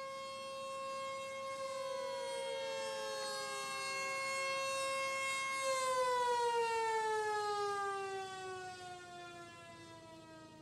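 Outdoor warning siren sounding for a tornado, holding a steady tone and then winding down from about six seconds in, its pitch falling as it fades. A second, fainter siren tone begins sliding down in pitch about two seconds in.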